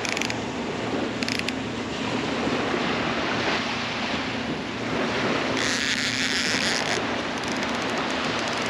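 Surf washing onto the beach with wind rushing over the microphone, and a louder burst of hiss about six seconds in.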